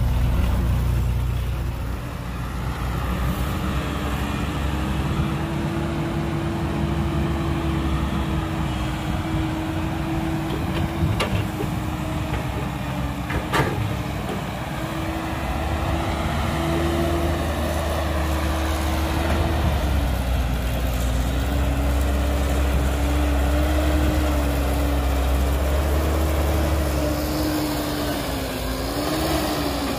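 Heavy diesel engines of an excavator and a dump truck running. The engine note shifts up and down as the machines work, with two sharp knocks about halfway through.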